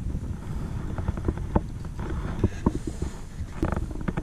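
Low rumble of wind on the microphone with scattered light clicks and knocks from a fish and gear being handled in a plastic kayak.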